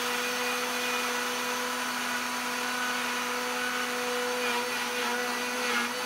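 Countertop blender motor running at a steady speed, grinding dry shelf-life boilies into a fine powder.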